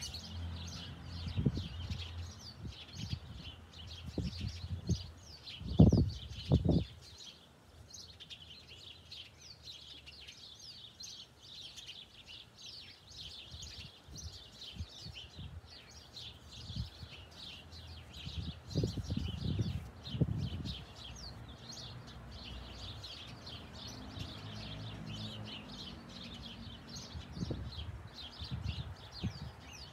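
Small birds chirping busily and without a break, with a few dull low thumps among them. The loudest thumps come about six seconds in and again around two-thirds of the way through.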